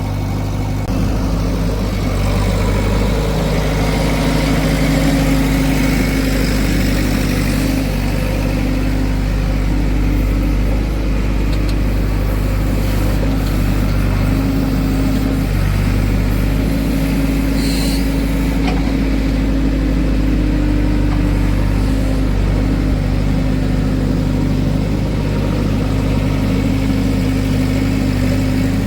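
Diesel engine of a backhoe or tractor running steadily at low revs, an even mechanical drone.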